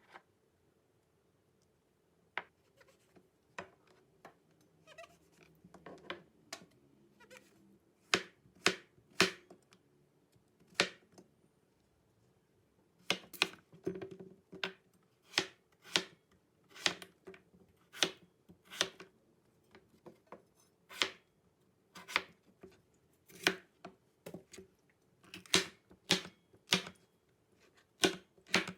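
Kitchen work sounds: a run of sharp taps and knocks, scattered at first and then about one a second from roughly halfway, over a faint steady hum.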